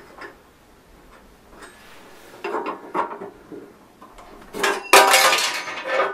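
Metal hand tool clinking and rattling against a luggage box's mounting hardware as its bolts are tightened: a cluster of clinks midway, then a louder, dense run of clinking near the end.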